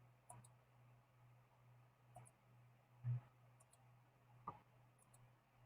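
Faint computer mouse clicks, a few short pairs spread through the quiet, with one soft low thump about three seconds in.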